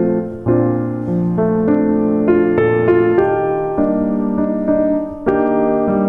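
Calm solo piano background music: slow, gently struck notes and chords that ring on.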